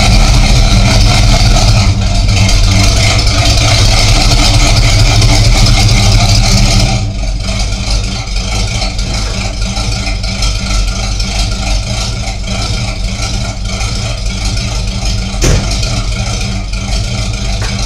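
Pontiac Firebird Formula 400's 400 cubic-inch V8 running from a cold start, with no choke in use. For about seven seconds it runs loud and busy, then the note drops and settles to a quieter, lower idle. A single short knock about fifteen seconds in.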